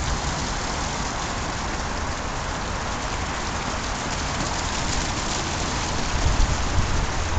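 Water fountain running: water falling from tall black stone pillars and spilling over stepped cascades into a shallow pool, a steady splashing hiss. A few low rumbles come in near the end.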